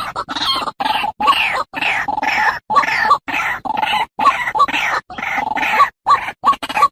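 White-breasted waterhen calls: a rapid, insistent run of harsh croaking notes, repeated over and over and broken by short silent gaps, as in a looped lure recording.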